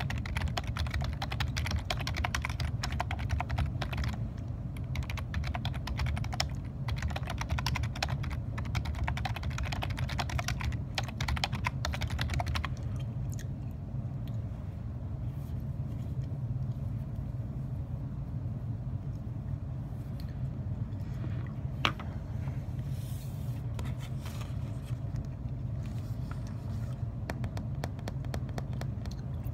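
Typing on a computer keyboard: rapid, dense key clicks for about the first twelve seconds, then the typing stops. After that come only scattered clicks, with one sharp click about twenty-two seconds in and a few more key taps near the end, over a steady low hum.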